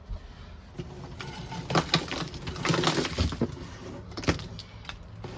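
Ice being broken loose and clattering out of a frozen-up fridge: a few sharp knocks, a scraping, clinking rush about three seconds in, and one more knock near the end. The fridge has iced over because its temperature control is broken and it freezes everything.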